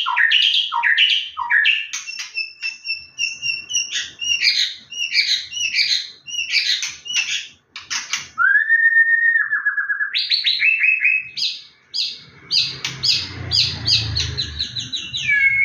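A songbird singing a long, varied song of quick repeated chirps, trills and whistles, with a brief break about eight seconds in followed by a lower falling trill. A faint low rumble sits under the song near the end.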